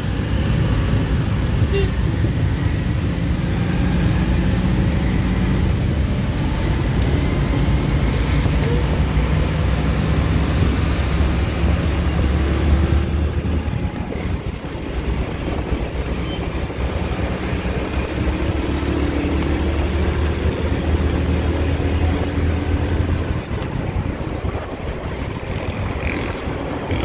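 Small 70 cc motorcycle engine running steadily while riding, with wind and road noise. The high hiss thins out about halfway through.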